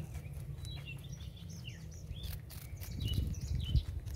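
A rabbit chewing a crisp green vegetable stalk, a run of quick crunchy clicks. Small birds chirp throughout, over a low rumble with a bump near the end.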